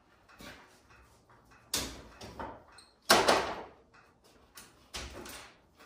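A few irregular knocks and clatters of tools and parts being handled at a pickup truck's front end. The loudest two come about two and three seconds in, with lighter clunks between.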